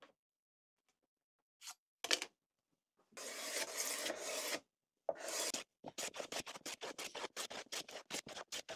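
Hand plane shaving the face of a glued-up hardwood strip board, cleaning off glue squeeze-out. Near the middle there is one longer scrape, and from about six seconds in a rapid run of short strokes follows, about five a second.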